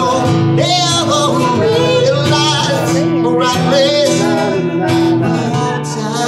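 A man singing into a microphone while strumming an acoustic guitar, a live solo song amplified through a PA.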